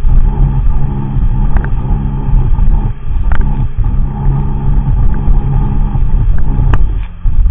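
Sea-Doo personal watercraft engine running loud at speed, its pitch surging and dropping every second or so, with a few sharp knocks.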